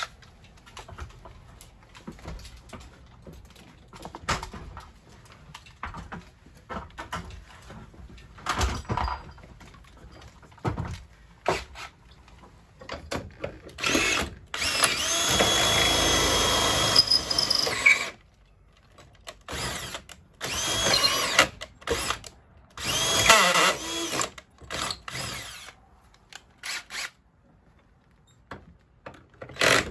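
Cordless drill boring a bolt hole through a wooden rafter in several bursts. The longest run lasts about four seconds, around the middle, and shorter runs follow. Before the drilling there are quieter clicks and knocks of tools and the bracket being handled.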